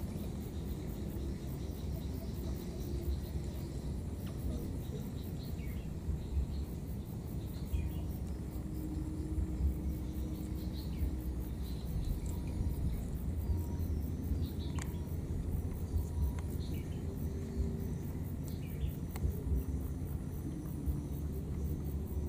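Outdoor ambience: a steady low rumble with scattered faint, short chirps above it.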